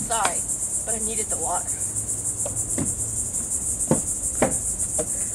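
Steady high-pitched buzzing of an insect chorus, with a few soft knocks of footsteps on wooden boards.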